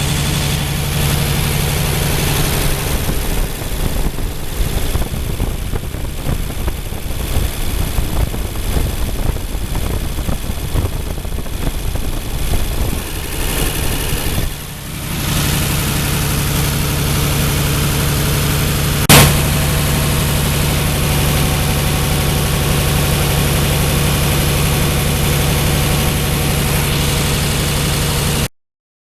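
Ford 8N tractor's flathead engine running, unevenly at first and then steadily after a brief dip about halfway. A sharp click comes about two-thirds of the way in, and the sound cuts off near the end.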